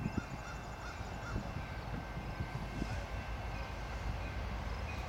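Low rumble of an approaching CN freight train's diesel locomotives, still at a distance and slowly growing louder, with a few short low calls and bird chirps over it.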